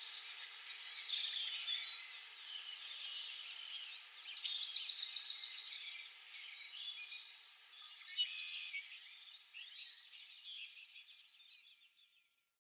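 Birds chirping and singing together, with a louder burst of song about four seconds in and another near eight seconds; the chorus fades out near the end.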